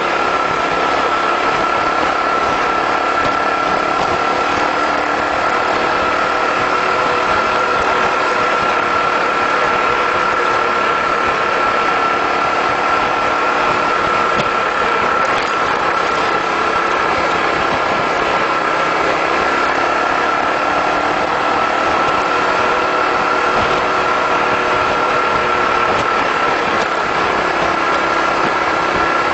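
Honda 250cc motorcycle engine running at a steady cruise on a bumpy dirt road, with wind and road noise and a constant high whine throughout.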